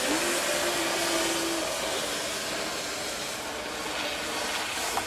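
Snowstorm wind blowing as a steady, fairly loud hiss.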